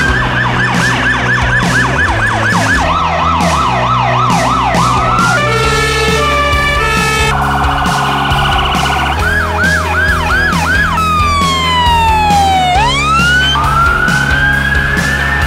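Emergency vehicle sirens cycling through their tones every couple of seconds: fast yelps, slower sweeps, a stepped two-tone, a rapid warble, and a long falling wail that swings back up into a slow rise. Background music with a steady beat plays underneath.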